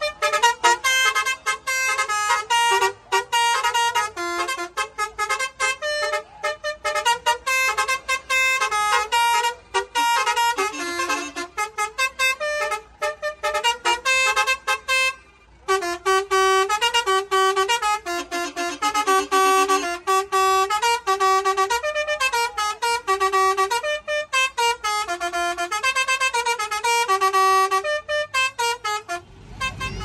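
Six-trumpet basuri musical truck horn playing a fast melody, its notes stepping up and down continuously, with one brief break about halfway through.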